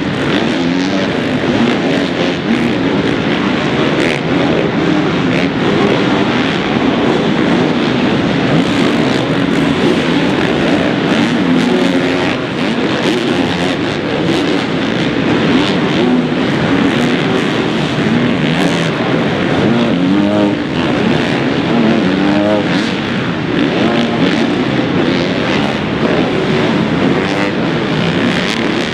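Several motocross dirt bikes revving through a supercross track's jumps. Their engine pitch keeps rising and falling as the riders open and close the throttle, with bikes overlapping one another.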